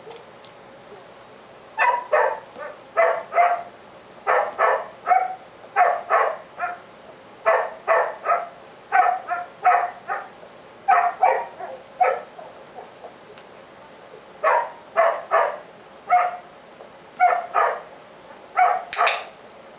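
Border collie barking over and over, in quick runs of two to four barks separated by short pauses, with one longer pause about two-thirds of the way through and a sharper, louder bark near the end.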